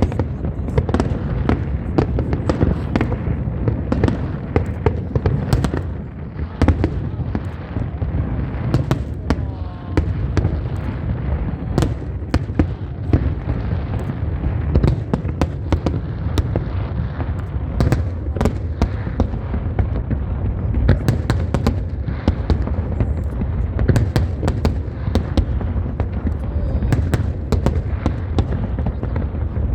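Fireworks display bursting without pause: dense, overlapping deep booms and sharp cracks, several a second.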